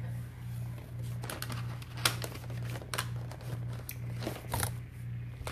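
Small electric cup-turner motor humming steadily with a slight regular pulse as it spins an epoxy-coated tray, with scattered light clicks and taps of handling.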